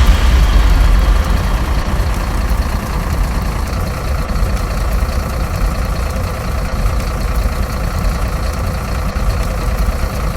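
School bell ringing on after a strike, its tones slowly fading, over a heavy low rumble; the next strike lands just after.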